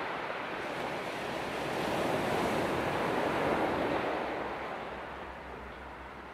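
Sea surf washing onto the shore, a rushing swell that builds to its loudest about three seconds in and then eases away. A faint low throbbing at a steady rhythm starts near the end.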